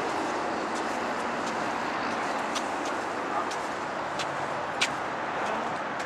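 Steady outdoor background noise with a few faint sharp clicks, the loudest nearly five seconds in.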